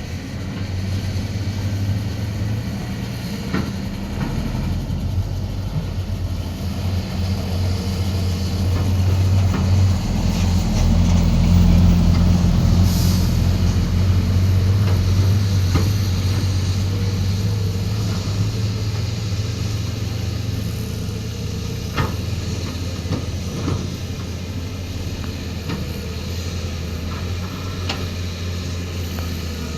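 Excavator's diesel engine running with a steady low drone. It grows louder about a third of the way in and eases off again after the middle, with a few light knocks along the way.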